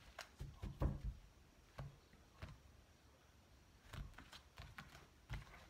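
Tarot cards being handled and drawn from a deck: a few soft, irregular taps and flicks of card stock, clustered in the first second and then spaced out.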